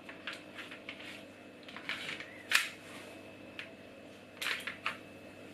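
Handling noise: a few sharp clicks and knocks of hard objects being handled, the loudest about two and a half seconds in, with a short run of clicks near the end.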